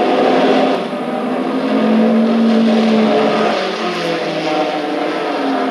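Racing car engine running at speed, its pitch shifting, heard from an old film soundtrack played over a room's loudspeakers.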